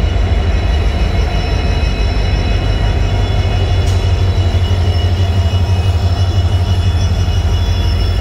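Two Indian Railways WDG4D diesel-electric locomotives, with EMD two-stroke engines, passing slowly at close range. Their engines give a heavy low rumble with steady high-pitched whining tones above it, and there is a short click about four seconds in.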